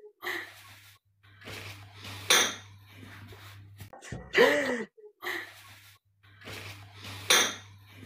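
Pots, pans and dishes clattering and knocking in a kitchen, with a couple of sharp clinks, over a low steady hum. A short tone that rises and falls comes about halfway through.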